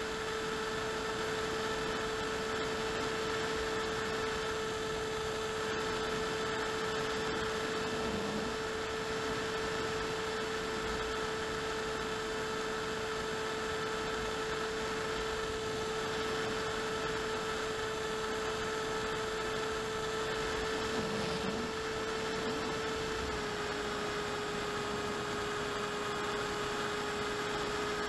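Electric motor and propeller of an AXN Clouds Fly FPV plane in flight, heard from its onboard camera: a steady whine with fainter higher tones over a hiss, dropping slightly in pitch about 23 seconds in.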